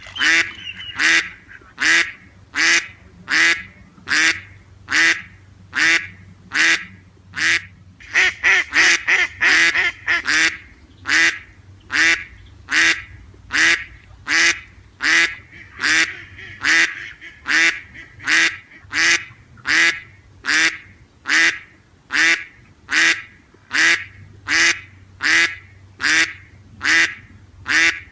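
Duck quacking over and over in a steady rhythm, about one quack every three-quarters of a second, with a quicker run of quacks about eight seconds in.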